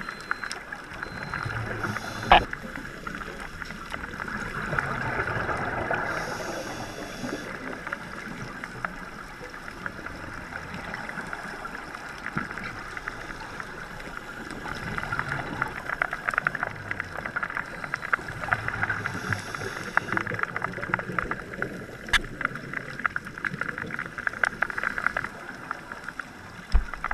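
Underwater ambience: a steady crackle of fine clicks over a hiss, with two longer swells of bubbling from scuba divers' exhaled breath, and a sharp knock about two seconds in.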